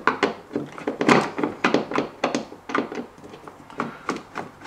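Irregular clicks and knocks, a few a second, of a hand screwdriver working a screw out of the plastic inner panel of a fridge compartment.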